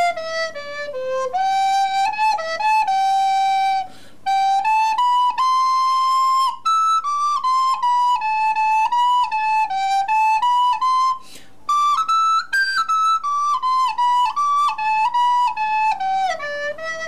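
Recorder played as a practice melody, one held note at a time, stepping up and down. It pauses briefly twice, about four seconds in and again around eleven seconds.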